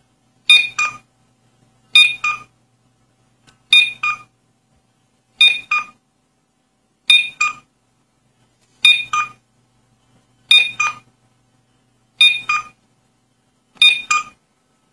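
GSM home alarm panel's keypad beeping as a phone number is keyed in: a short double beep for each key press, nine presses at an even pace of about one every 1.7 seconds.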